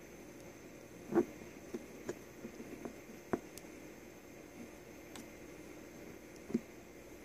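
A few light clicks and knocks, spaced irregularly, over a steady low hiss. The loudest comes about a second in, another at about three seconds and another near the end.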